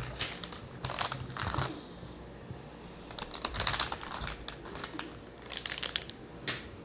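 Bag of trading discs being torn open and crinkled by hand, in several short crackly bursts with a few sharp clicks.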